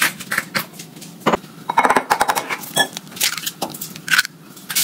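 Kitchen utensils clinking and tapping against a ceramic mixing bowl as ingredients are added: an irregular run of light taps, a few of them ringing briefly.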